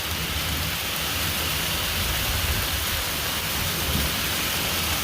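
Hail falling steadily with rain in a dense, unbroken hiss of impacts.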